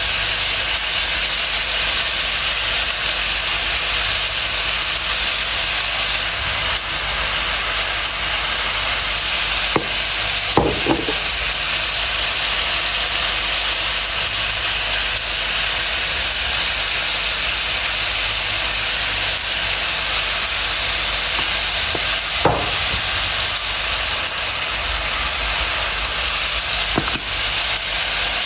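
Steady, loud hiss that runs without a break, with a few brief faint sounds about ten and twenty-two seconds in.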